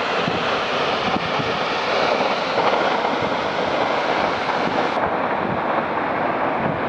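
Steady rushing of floodwater pouring out of the spillway of a brim-full dam, with wind noise on the microphone.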